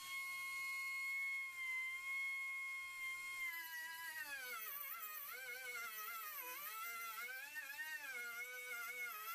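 Small high-speed rotary tool whining steadily, then dipping and wavering in pitch from about three seconds in as it bites into the work and loads the motor.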